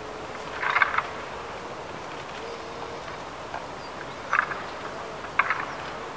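Red deer stags' antlers clattering against each other as they fight with locked antlers, in three short bursts of rattling clicks: one about a second in, then two more a second apart later on.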